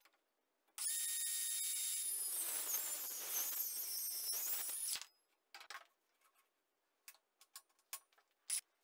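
Greenworks 24 V cordless circular saw starting about a second in and running for about four seconds as it cuts into a wooden beam, a high whine that wavers in pitch over the cut, then stopping abruptly. A few light knocks and clicks follow as the wood is handled.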